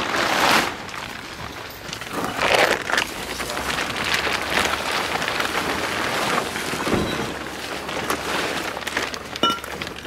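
Plastic tarp rustling and crinkling as it is pulled and dragged off a car, in several louder swishes.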